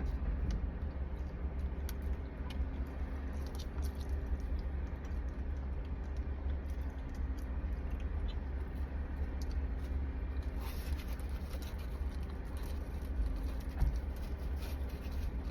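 Faint scattered clicks and rustles of food being handled and eaten, over a steady low hum.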